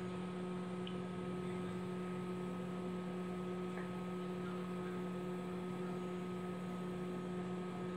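Steady electrical hum with no speech: a low hum with a couple of fainter, higher steady tones above it.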